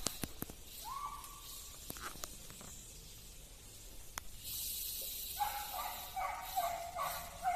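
Hunting dogs on an agouti's trail, yelping in a run of short, repeated cries from about five seconds in. Earlier there are a few sharp twig-like snaps and a single short rising whistle.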